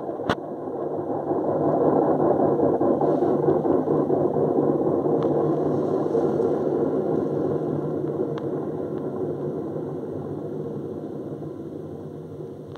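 Beko front-loading washing machine spinning its drum: a steady whir from the motor and drum that builds over the first couple of seconds, then slowly dies away as the spin winds down, with a few faint ticks.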